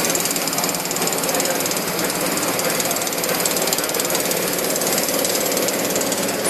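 TiP TiG hot-wire TIG welding running on a pipe joint: a steady, fast rattling buzz, the sound of the process's oscillating wire feed, holding even throughout.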